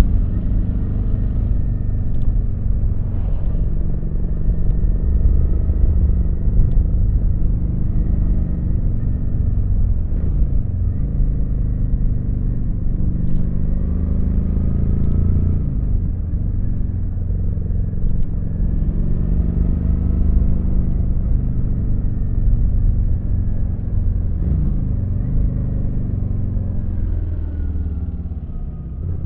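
Kawasaki VN900's V-twin engine running on the move, its pitch falling and rising again several times as the throttle and gears change, with a short dip in level near the end.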